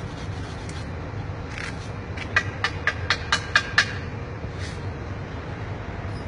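A quick run of about eight sharp, ringing knocks over a second and a half, starting a little over two seconds in, above a steady low rumble of city background noise.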